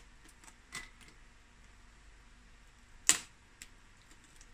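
Boiled crab's shell cracking as a leg is twisted and pulled off the body by hand: a faint crack under a second in and a sharp louder one about three seconds in.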